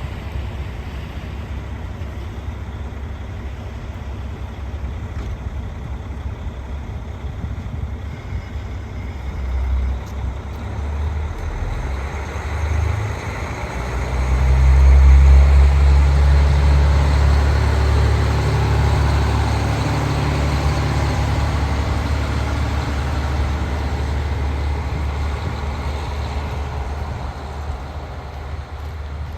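A vehicle running with a steady low rumble that swells sharply about 14 seconds in and then slowly eases off.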